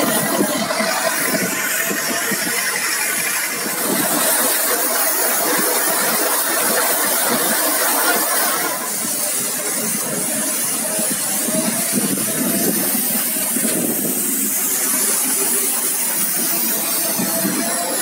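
Bobcat T40180 telehandler's engine running while its front-mounted rotary sweeper brush sweeps a paved road. The engine noise and the brush's hiss blend into one steady sound.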